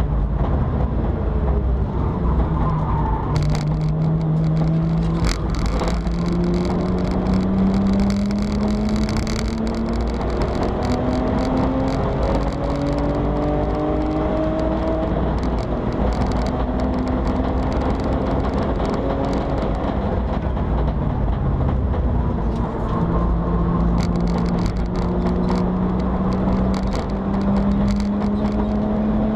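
BMW 325i E90 race car's straight-six engine under hard acceleration, heard inside the stripped cabin, its pitch climbing and dropping back at each upshift several times over. A few sharp clicks sound early on.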